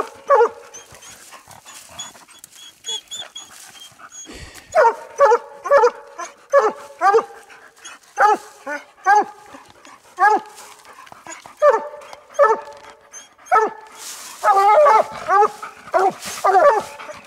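Two coonhounds barking treed at a den tree, the chop bark that tells the hunter the coon is treed. There are short barks at the start, a lull of a few seconds, then steady repeated short barks about twice a second.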